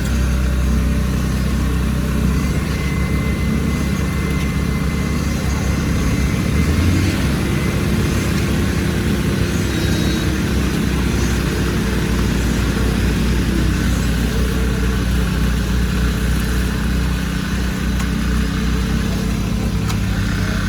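Engine of heavy concrete-pouring machinery running steadily. It speeds up about seven seconds in, holds the higher speed, then settles back down about halfway through.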